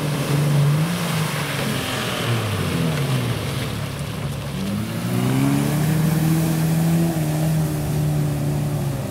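Off-road 4x4 engine revving hard under load in deep mud. The revs fall and rise over the first few seconds, then climb about five seconds in and hold high.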